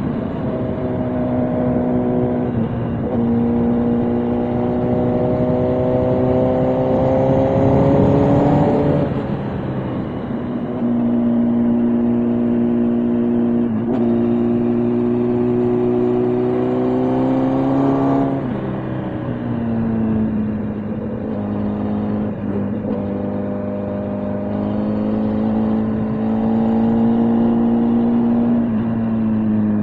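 Motorcycle engine running at road speed, its note climbing slowly for a few seconds and then dropping back sharply, about five times over.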